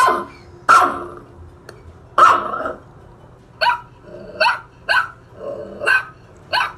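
Dog barking: about nine short, sharp barks, spaced out at first and coming quicker in the second half.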